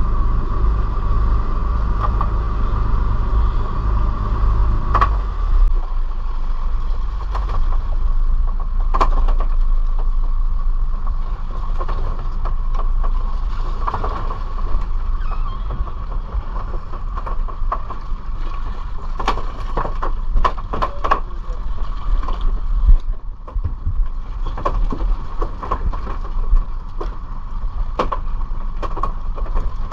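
Fishing boat's engine running steadily under way, a deep rumble with a steady whine on top; the rumble eases a little about five seconds in. Scattered short knocks sound through it.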